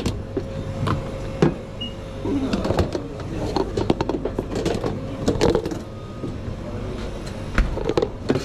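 Kitchen work clatter: scattered knocks and clicks of utensils and food containers being handled, over a steady low hum.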